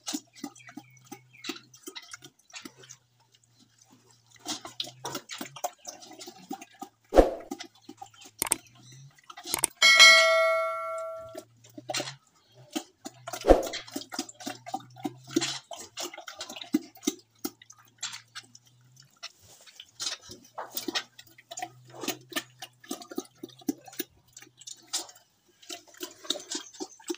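Pig eating from a steel bowl: a steady run of quick chomping and smacking clicks, with two sharp knocks against the bowl. About ten seconds in the bowl rings once like a bell and dies away.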